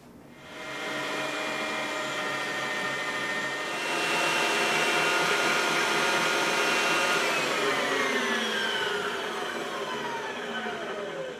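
Electric meat grinder running with a steady motor whine, grinding elk meat a second time through a finer 4.5 mm plate. It starts about half a second in and gets louder about four seconds in. Over the last few seconds its pitch sinks steadily.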